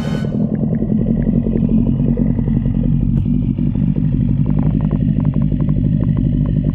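Old Evinrude outboard motor running steadily and loudly at a constant speed, a rapid even firing beat. It cuts off abruptly near the end.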